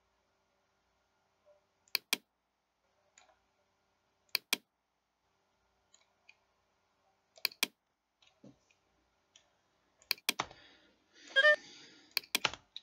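Computer mouse buttons clicking: sharp clicks in quick pairs, about every two to three seconds. A louder short noise comes near the end.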